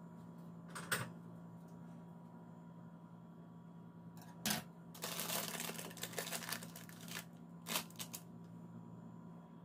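Baking parchment and a baking tray being handled: a few sharp clicks and a stretch of crinkling paper in the middle, over a faint steady hum.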